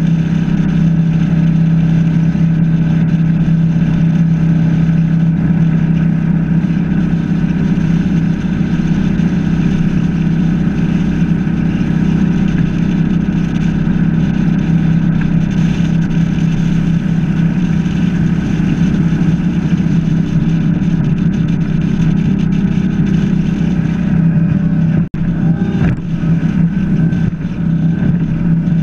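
21-foot Chaparral H2O bowrider's sterndrive engine running steadily at cruising speed, a low even drone under a steady rush of wind and water past the bow.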